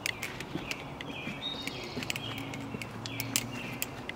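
Butterfly knife being flipped: quick irregular clicks and clacks of the handles and blade, with birds chirping in the background.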